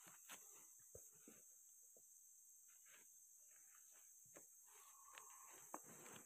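Faint, irregular footsteps and rustles in forest leaf litter, over a steady high-pitched hum of insects.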